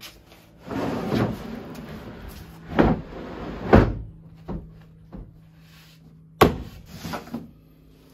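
Plywood bed platform being slid along a ribbed truck-bed liner: a scraping rush for a couple of seconds, then a series of wooden knocks and thuds as it is shoved into place, the loudest near three seconds, four seconds and six and a half seconds in.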